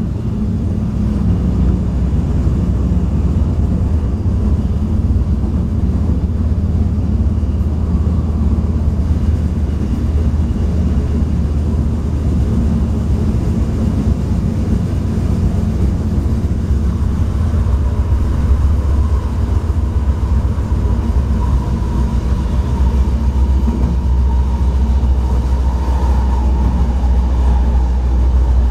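Cabin of a Stadler GTW diesel light rail car under way: a steady low rumble of the running train. A faint high whine comes in about two-thirds of the way through.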